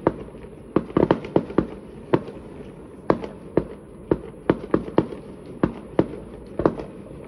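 Fireworks display going off: an irregular string of sharp bangs, at times several a second.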